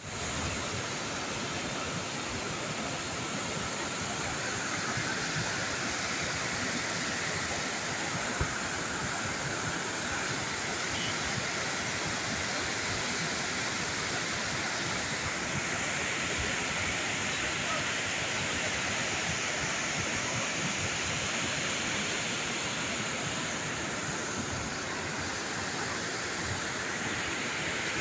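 Mountain waterfall pouring over rocks: a steady, unbroken rush of water.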